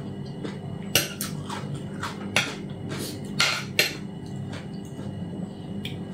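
Metal spoon and fork clinking and scraping against a ceramic plate while serving salad: a handful of separate clinks and scrapes, most of them between about one and four seconds in.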